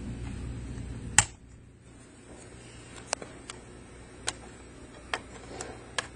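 Small plastic clicks from a Lenovo T450 laptop keyboard being pushed back by its tabs: one sharp, loud click about a second in, then several fainter ticks.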